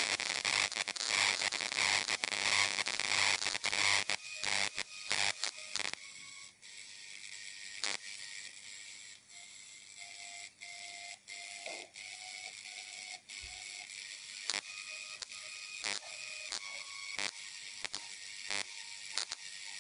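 Homemade plasma speaker, its high-voltage arc sounding: a loud hiss for the first few seconds, then a quieter crackle with many sharp clicks and short thin notes coming through the arc.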